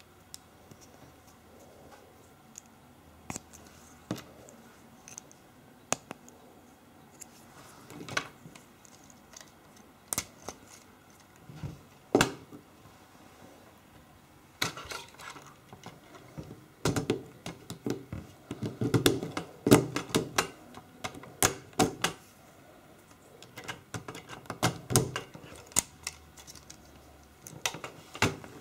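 Plastic LEGO Technic parts clicking and clattering as the dragster model is handled: scattered single clicks at first, then quick flurries of clicks in the second half.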